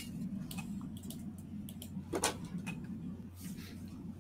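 Steady low electrical hum with a few faint, scattered clicks and taps, the strongest a small knock about two seconds in.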